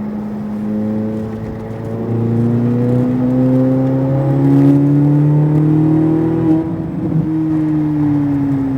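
Corvette Z06 engine accelerating out of a corner, its revs climbing for about five seconds, then easing off near the end as the driver lifts.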